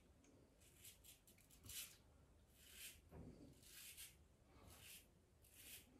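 Faint short scrapes of a plastic double-edge safety razor cutting through lathered stubble, about six strokes roughly a second apart.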